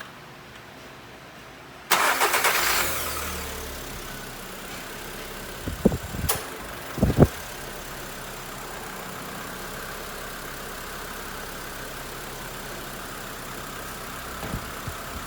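Volkswagen Saveiro's engine started about two seconds in, loud at first and then settling over a couple of seconds to a steady idle with the air conditioning switched on. A few short knocks and a sharp click come a few seconds later.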